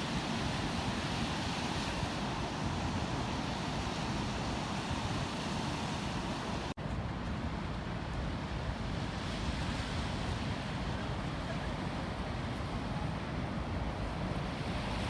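Steady rushing noise of wind on the microphone, with a momentary drop-out about seven seconds in.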